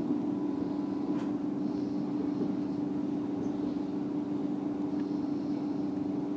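Moving electric train heard from inside the carriage: steady rolling noise with a steady humming tone, and a single sharp click about a second in.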